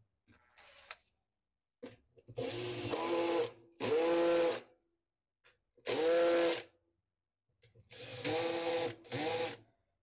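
Cordless drill-driver running in five short bursts as it drives the screws that fix the washing machine's stainless-steel basket to its hub. The motor whine rises and falls in pitch with each run.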